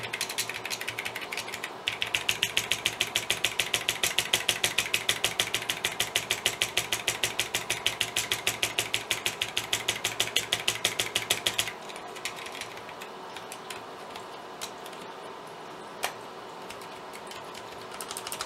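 An Amiga 1000 keyboard's V key tapped rapidly and repeatedly, about five clicks a second, to work contact cleaner into a key that was not registering well. The fast tapping stops suddenly near the two-thirds mark, and a few single key presses follow.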